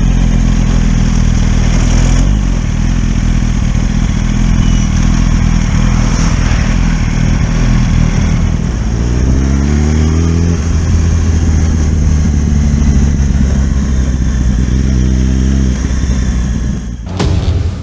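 Motorcycle engine running while riding, its pitch climbing as it accelerates about nine seconds in and again briefly later, then cutting off shortly before the end.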